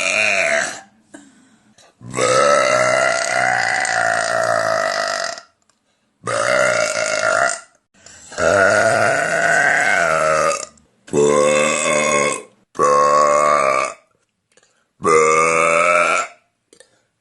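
A woman burping loudly, over and over: a run of six long, pitched burps with brief gaps between them. The first burp lasts about three seconds and the rest one to two seconds each. The end of an earlier burp trails off just at the start.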